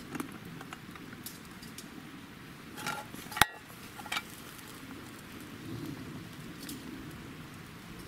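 Metal hangō mess-tin lid clanking as it is lifted off the pot of freshly cooked rice, with a sharp metallic clink about three and a half seconds in and a lighter one just after four seconds. A wood fire crackles underneath with small scattered pops.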